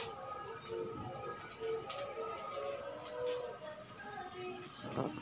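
Crickets trilling in one steady, high-pitched tone that does not break, with faint scattered lower notes from further off underneath.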